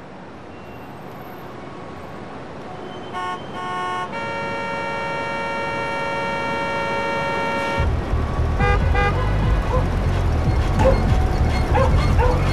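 City traffic sound effects swelling up: a car horn gives two short toots, then one long held honk. At the end of the honk a heavy, low traffic rumble comes in, with many short honks and squeaks over it.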